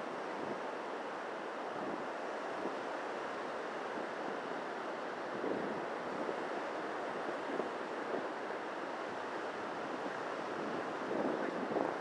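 Surf breaking and washing on a sandy beach, a steady rushing hiss with wind buffeting the microphone; it swells a little near the end.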